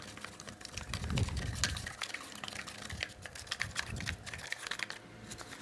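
A wooden stick stirring glitter-glue slime in a small plastic cup, with quick irregular clicks and taps as it scrapes and knocks the cup. The glue is thickening into slime as the starch is stirred in.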